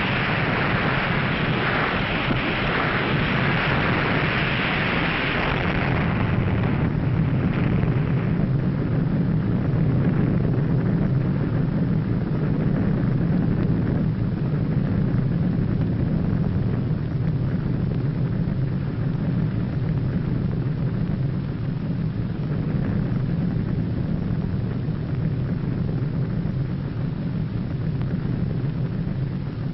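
Long rumble of a huge explosion. A loud hiss over the rumble eases off about six seconds in, leaving a steady deep rumble.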